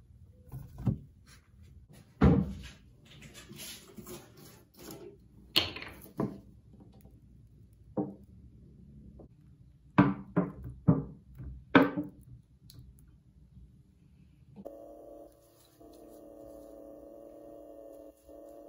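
Workbench handling noises: a metal can and cast grinder housings being picked up and set down on a tray, a series of knocks and thunks with several sharp knocks close together about ten to twelve seconds in. A faint steady hum follows from about fifteen seconds in.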